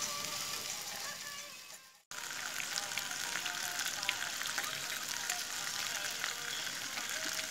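Pork pieces sizzling and crackling on a hot stone slab over a wood fire. The sound fades out about two seconds in and comes back abruptly.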